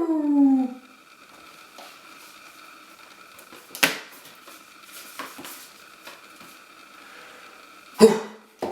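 The boxed gaming mouse being handled before opening: a few sharp knocks and taps of the packaging, the loudest near the end, over a faint steady hum.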